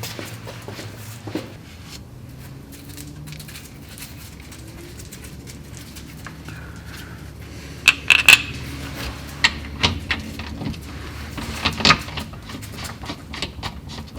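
Scattered metallic clinks and knocks of tools and car parts being handled during mount work, with a sharp cluster about eight seconds in and another near twelve seconds, over a low steady hum.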